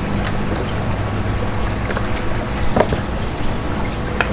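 Beef stock pouring from a carton into a cast-iron Dutch oven of chili, then a wooden spoon stirring it, with a few light clicks, over a steady low rumble.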